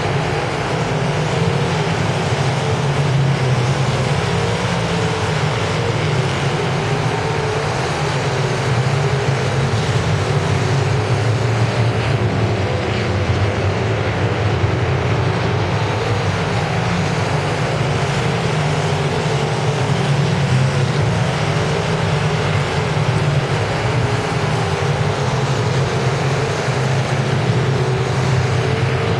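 A pack of dirt-track late model race cars with V8 engines running at racing speed, a steady loud drone that wavers slightly in pitch as the cars circle the oval.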